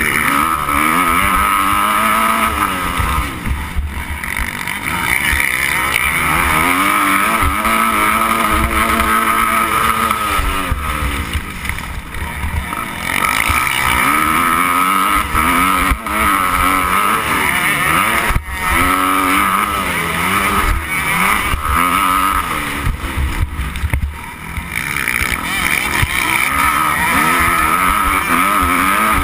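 Motocross bike engine running hard, its pitch repeatedly climbing and dropping as the rider accelerates and shifts gear.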